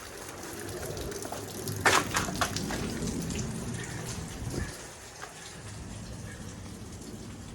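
Heavy rain falling steadily, with a quick cluster of sharp taps about two seconds in.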